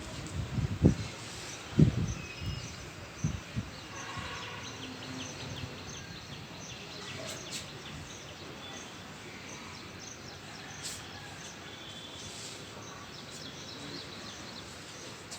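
Outdoor ambience: a steady even hiss with faint bird chirps and insect calls, after a few low thumps in the first three seconds.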